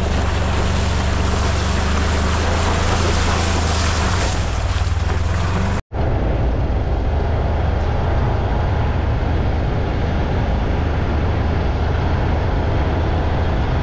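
Ranger utility vehicle on the move, its engine running steadily under heavy wind and road noise. The sound drops out for an instant about six seconds in and resumes a little duller.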